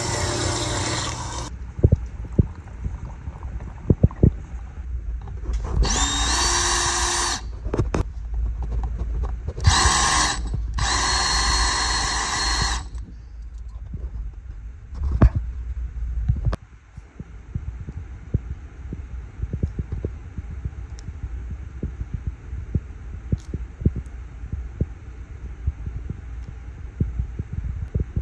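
Metal-cutting band saw running through a titanium rod, stopping about a second and a half in. A machine motor then spins up twice with a rising whine, among scattered knocks and clicks of workshop handling over a low hum.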